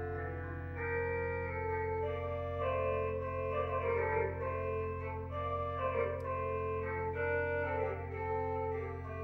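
Organ playing slow sustained chords over steady held bass notes, the chords changing about every second.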